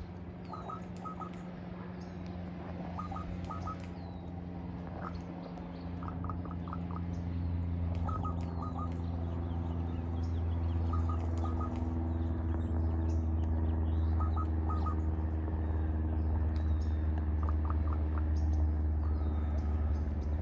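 A crow giving an unusual call: bursts of three or four quick, short notes, repeated every couple of seconds. A steady low hum underlies it and grows louder partway through, with faint chirps from other birds.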